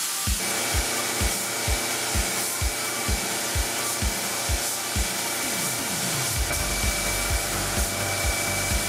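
Electronic background music with a steady kick drum about twice a second and sustained synth tones, over a steady airy hiss; a deep bass line comes in about six seconds in.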